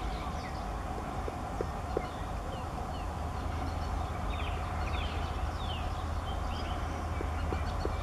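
Grey-headed woodpecker pecking at tree bark. Soft, irregular taps come a few at a time in the first two seconds and again near the end. Small birds chirp in the middle, over a low steady rumble.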